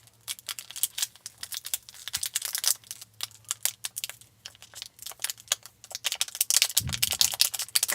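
Slime being squished and worked by hand with glitter, giving a dense run of small sticky crackles and clicks.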